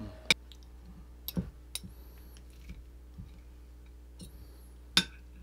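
A metal spoon and fork clinking and scraping against a plate as beef tapa is cut. There are a few sharp clinks, the loudest just after the start and near the end, with softer taps between.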